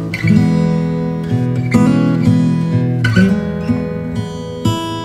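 Background music: acoustic guitar playing plucked and strummed notes.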